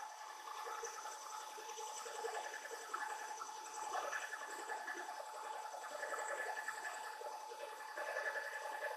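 Wide milling cutter roughing steel on a metal planer mill: a steady cutting noise with a constant tone running through it, over a rushing hiss.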